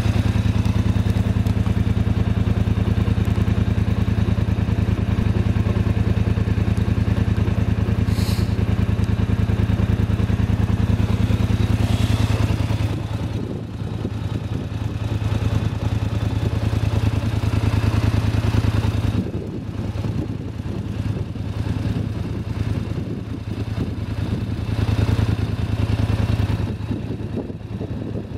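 Dirt bike engine running: a steady, even tone for about the first thirteen seconds, then rougher and uneven, rising and falling as it rides the rocky trail.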